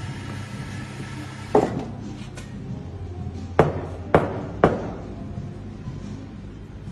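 Four sharp knocks of barware on a wooden café counter, one about a second and a half in, then three quick ones about half a second apart, over a steady low hum.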